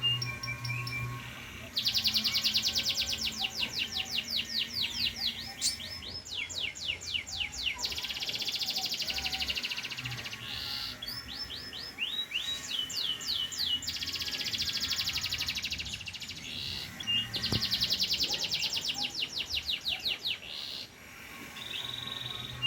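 Domestic canary, a pied 'panda' bird, singing a long, energetic song of fast trills and rapidly repeated notes in phrases of a few seconds each, with short breaks between them.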